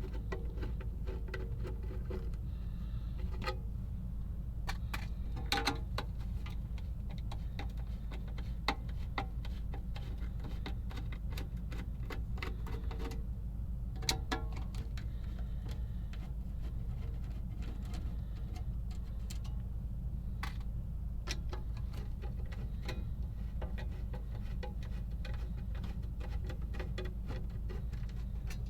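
Scattered small metallic clicks and taps of hand tools and screws on a Marantz 510M amplifier's chassis during disassembly, over a steady low hum.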